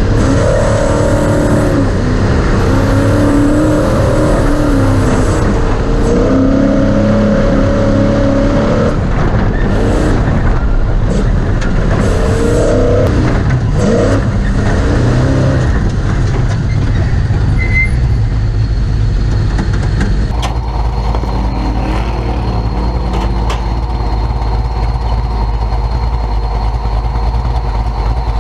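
Class 1450 Ford Ranger off-road race truck running hard, its engine note rising and falling with scattered knocks and rattles from the truck. About twenty seconds in it settles to a steadier, lower drone.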